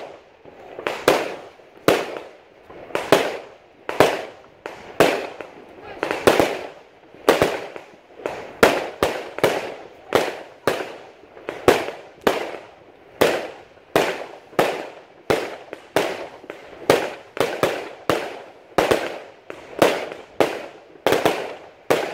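Aerial firework shells bursting in a steady series, a sharp bang about once a second at first and then one to two a second, each bang trailing off in a short echo.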